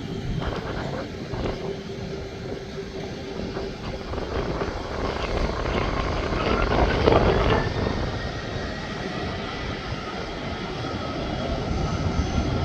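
Jet airliner engines running with a steady low rumble; about five seconds in a whine rises in pitch and then holds steady.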